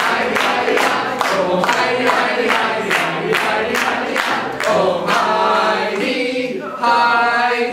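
A group of voices singing a cappella over a steady percussive beat of about two and a half strokes a second. The beat stops about five seconds in, and the song ends on long held notes.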